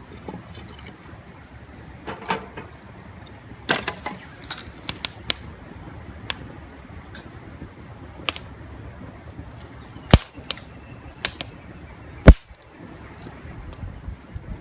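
Wood campfire crackling, with irregular sharp pops and snaps over a low steady background noise; the two loudest pops come about ten and twelve seconds in.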